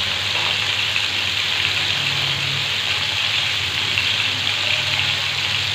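Chicken pieces frying in hot oil in a pan, with a steady sizzle.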